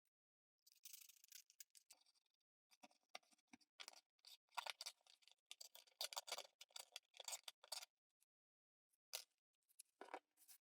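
Faint, irregular scraping and clicking of hand work on a plastic pickup riser and pickup, in quick clusters through most of the stretch, then a few single clicks near the end.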